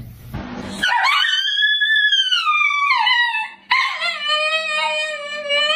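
Dogs howling: a high howl that slides down in pitch starts about a second in, then a second, longer and lower howl follows, from a husky-type dog.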